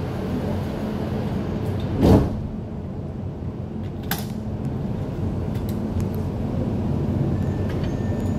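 Alstom Dubai Metro train running through an underground tunnel, heard from inside the car: a steady low rumble, with a short loud thump about two seconds in and a sharp click about four seconds in.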